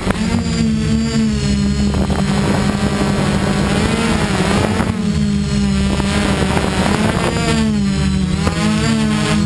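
Electric motors and propellers of a Gaui multirotor drone humming in flight, the pitch wavering with throttle. It dips about seven and a half seconds in and climbs back a second later.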